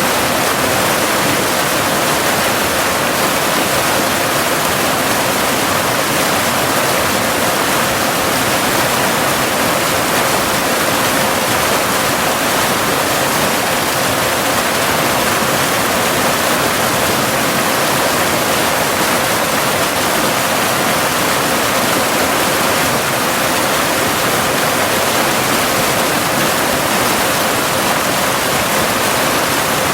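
Cascading waterfall: a steady, even rush of falling water. A steady 528 Hz tone, part of a binaural delta-wave beat, sounds continuously beneath the water.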